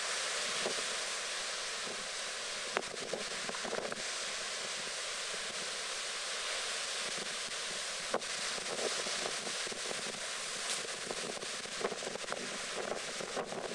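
Storm-surge surf breaking against a sea wall and washing up a slipway, a steady rushing noise with wind buffeting the microphone. A few sharp knocks stand out, the loudest about three and eight seconds in.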